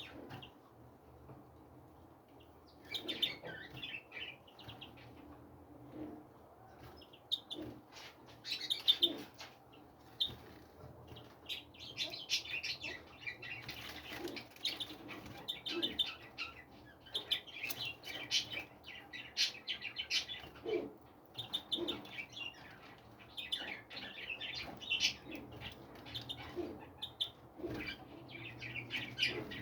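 Many small birds chirping and calling, a dense overlapping twitter of short high notes that starts about three seconds in.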